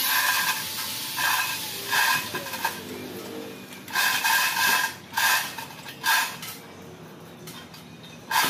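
A 3-ton manual chain block being hauled, its chain running through the hoist and rattling in repeated short bursts with quieter pauses between pulls.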